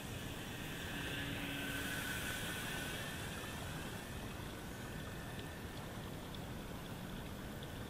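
Electric motor and propeller of an RC glider, a faint whine during the first three seconds that drops slightly in pitch as the plane flies past, over a steady rushing background noise.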